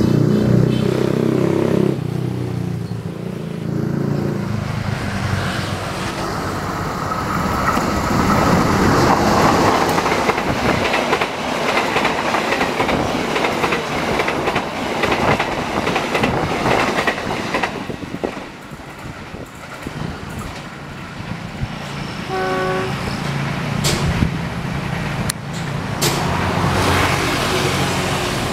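Diesel-hauled express passenger train passing at speed close by. A pitched drone at the start gives way to the loud rush and rapid clatter of the coaches' wheels on the rails, easing off in the latter part.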